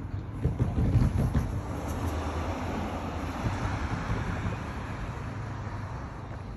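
Road vehicle noise swelling from about two seconds in and fading away, over a low rumble.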